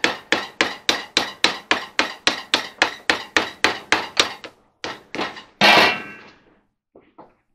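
A hammer rapidly tapping a flat metal blade held against the rim of a clothes dryer's front drum bulkhead, about four blows a second, cutting away the old glued felt seal. The tapping stops about four and a half seconds in. A second later comes one louder clang that rings briefly.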